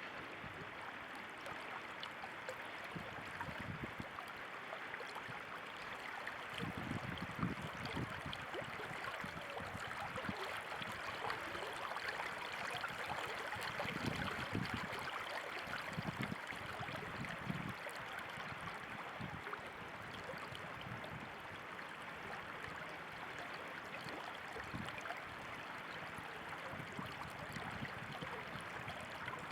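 Running water flowing steadily, a stream-like rush with low gurgles that come and go, strongest about a quarter of the way in and around the middle.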